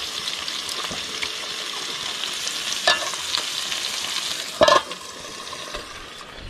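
Meat sizzling as it fries, a steady hiss broken by a few knocks; after the loudest knock, about four and a half seconds in, the sizzle gets quieter.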